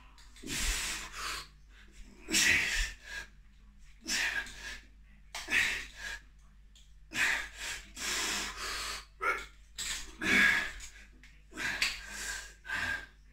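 A man breathing hard under heavy exertion while pressing dumbbells overhead: short, forceful breaths come about every second or two.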